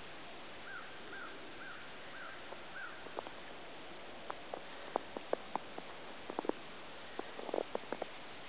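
Footsteps crunching in snow: sharp irregular crunches that start about three seconds in and come faster toward the end. Before them, a bird calls five times in quick, even succession.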